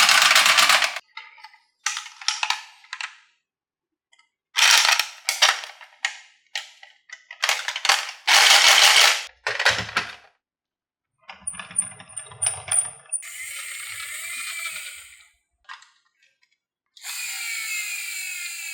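Marbles rattling and clattering down a wooden HABA marble run in separate bursts a second or two long, broken by sudden gaps of silence; near the end the sound turns into a steadier rushing rattle.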